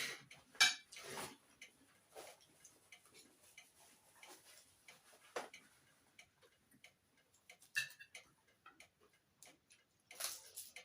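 Eating sounds at a meal: irregular soft clicks and taps of chewing and cutlery, with a few louder ones about a second in and near the end.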